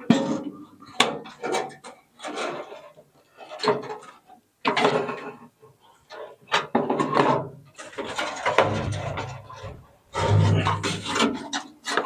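An old fluorescent light fixture being worked loose from wooden ceiling joists: irregular scraping, rattling and knocking of its metal housing against the wood, with several sharp clicks.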